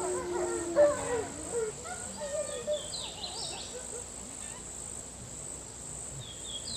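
Outdoor nature ambience: a steady high insect drone, with scattered chirping calls that are busiest in the first second and a half.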